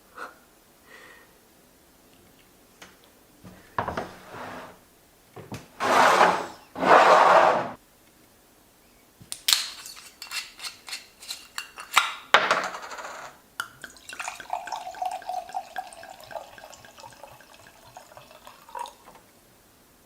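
Cutlery and dishes: clicks and clinks of a utensil against a plate, then a ringing scrape across it, with a few louder noisy bursts before them.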